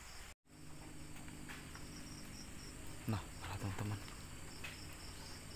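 Night insects chirping in an even, pulsing rhythm over a steady low hum, with a few short low knocks or grunts about three seconds in. The sound drops out completely for a moment less than half a second in.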